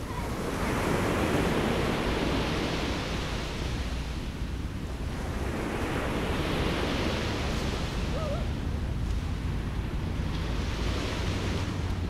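Sea surf breaking and washing up the beach, swelling and fading in three surges a few seconds apart, with wind rumbling on the microphone.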